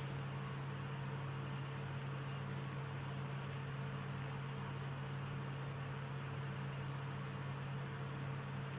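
Steady low hum with an even hiss: background room tone with no change throughout.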